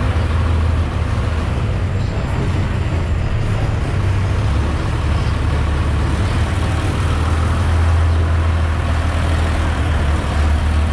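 A cross-river boat's engine running steadily with a low drone.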